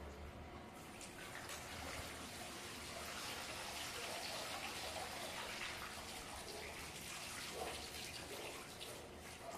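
Water running and splashing steadily as a pool vacuum head and its hose are lifted out of the pool.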